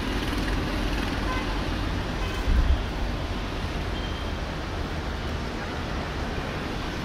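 Airbus A330-300 airliner's jet engines during its landing rollout: a steady, even rumble, briefly louder about two and a half seconds in.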